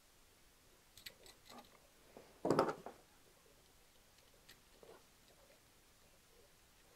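Small clicks and handling noises as a wire is worked onto an electrical receptacle in a plastic box, with one brief louder thump about two and a half seconds in. A few faint ticks follow as a screwdriver turns a terminal screw.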